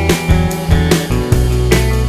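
Instrumental rock background music with guitar and a steady drum beat.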